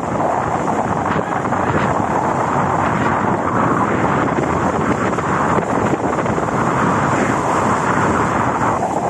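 Strong wind buffeting the microphone in a steady rush, with surf washing over rocks beneath it.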